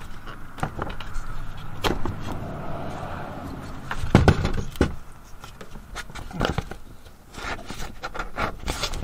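Handling noise from working a metal ceiling-fan brace bar and plastic electrical box between attic joists: scattered knocks, clicks and scrapes, with a cluster of louder knocks about four seconds in.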